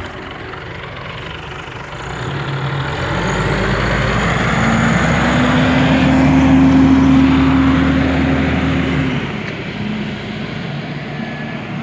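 1999 Scania L94UB city bus with its DSC9 nine-litre six-cylinder turbodiesel accelerating away. The engine note builds over several seconds with a high whine above it, then its pitch drops and it fades as the bus moves off, about nine seconds in.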